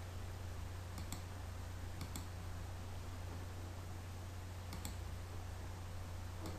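Faint computer mouse clicks, coming in close pairs three times and once more near the end, over a steady low hum.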